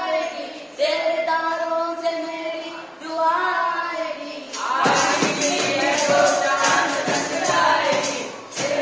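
Qawwali singing: a single voice holds long, wavering sung lines. About five seconds in, a fuller sung passage begins over a fast, steady percussive beat.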